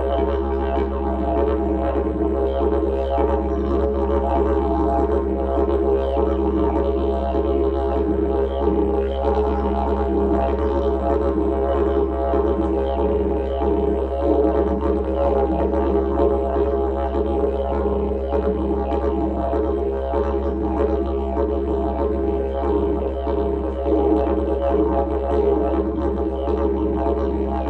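Didgeridoo playing one low, steady drone with no break, its overtones shifting in a rippling rhythm above the held fundamental.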